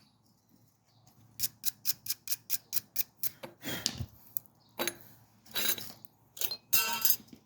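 Light metal clicks in a quick even run, about six a second for two seconds, then a few louder scrapes and clinks: brake pads and their anti-vibration shims being handled.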